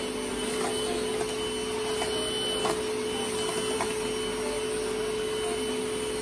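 Deerma cordless handheld vacuum cleaner running steadily with a constant motor hum and whine as its floor brush is pushed over floor tiles. A few light clicks sound now and then.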